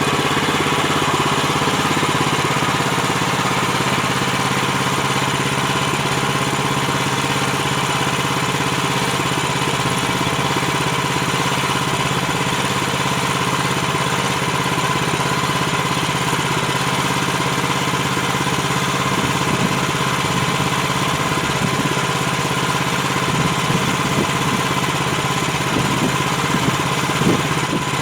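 Gasoline engine of a Woodland Mills HM130MAX portable bandsaw mill running steadily, with a steady higher whine above the engine note. Some irregular rough rattling joins in during the last third.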